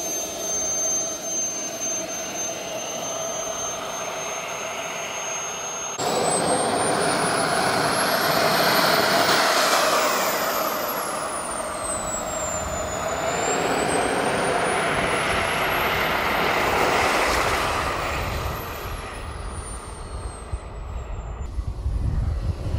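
Jetman 160 model turbine of a large RC jet: a steady high whine over a rushing noise, then, after a cut about 6 s in, the turbine spooling up and down as the jet taxis. The whine sinks to its lowest about 13 s in and climbs again with the throttle.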